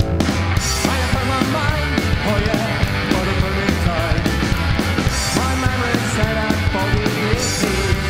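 Psychobilly rock song playing an instrumental stretch without singing, with a fast steady beat.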